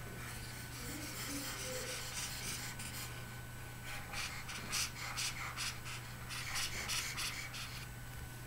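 Pen stylus scratching back and forth on a tablet surface while erasing. A run of short, quick strokes starts about four seconds in, over a steady low electrical hum.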